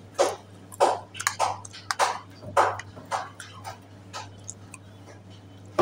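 A person chewing a mouthful of chaat made with crisp fried nimki and bhujiya: short crunches roughly every half second, over a faint steady hum.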